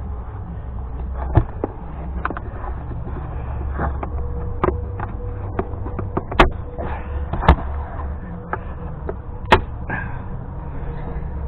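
Irregular sharp clicks and knocks of hands working with wiring, connectors and tools, over a steady low rumble.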